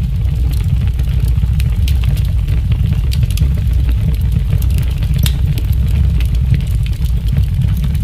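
Wind buffeting the microphone of a camera mounted high on a fishing boat, a loud, uneven low rumble, with scattered light ticks and knocks.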